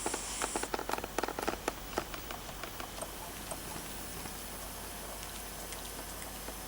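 Elderly sleeping cat snoring: a run of irregular soft crackles and clicks in its breathing for about two and a half seconds, then a quieter stretch.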